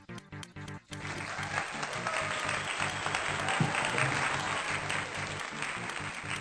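Background electronic music with a steady beat. From about a second in until near the end, a steady rushing noise sits over it.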